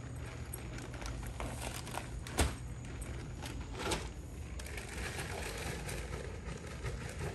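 Rustling and scattered knocks from sandbags being handled and moved, with one sharp thump about two and a half seconds in and a smaller one about a second later.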